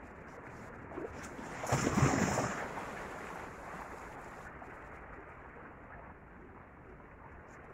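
Small sea waves washing and breaking among shoreline rocks, a steady wash with one louder surge about two seconds in.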